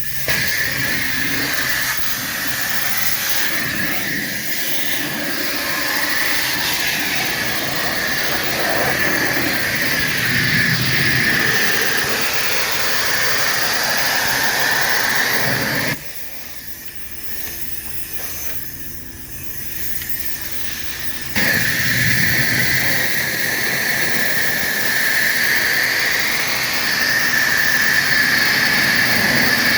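Car wash power washer wand spraying water onto a boat: a loud, steady hiss. It drops away for about five seconds in the middle, then starts again.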